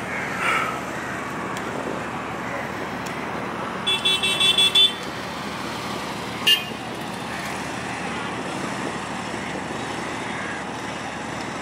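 A vehicle horn honks in a rapid string of about six short toots about four seconds in, then once more briefly about two seconds later, over a steady din of engines and crowd.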